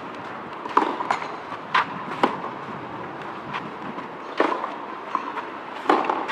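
Tennis ball struck back and forth with rackets in a rally: several sharp pops every second or two.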